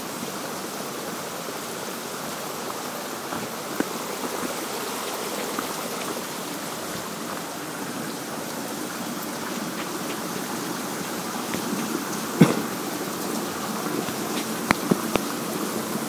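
Rushing water of a stream and small waterfall, a steady noise throughout. A few short sharp knocks sound about twelve seconds in and again near the end.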